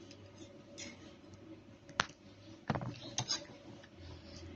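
A few light clicks of a fork against a plate: the sharpest about two seconds in, then a couple more about a second later.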